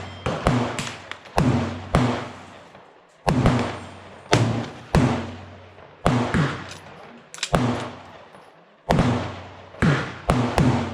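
Gunshots on a busy shooting range, about fifteen in all at an irregular pace, some in quick pairs. The pace is too fast for one bolt-action rifle, so several guns are firing along the line. Each shot rings out and fades over about half a second.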